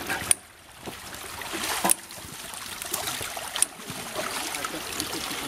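Water splashing and sloshing as a heavy all-wheel-drive motorcycle is pushed and hauled through shallow river water by people wading, with three sharp knocks.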